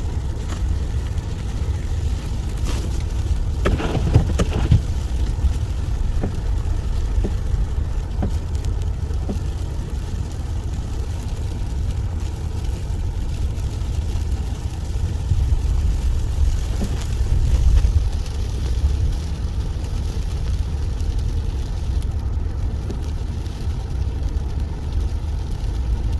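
Steady low rumble of a car driving slowly on an uncleared, snow-covered road: engine and tyre noise heard from inside the vehicle. A few brief knocks and clicks come about four seconds in.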